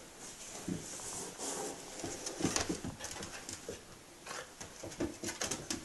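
Tricolor corgi puppy snuffling and scuffling, with irregular small noises and a quick run of clicks near the end.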